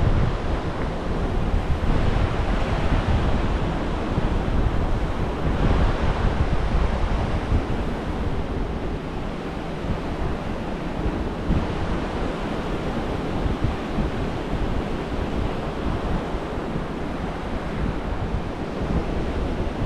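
Gulf of Mexico surf breaking and washing up a sandy beach in steady, gently surging waves. Wind buffets the microphone, adding a low rumble underneath.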